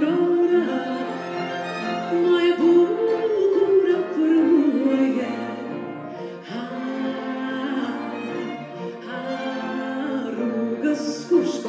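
A woman singing into a microphone in a long, wavering vocal line, accompanied by a piano quintet: two violins, viola and cello bowing, with piano.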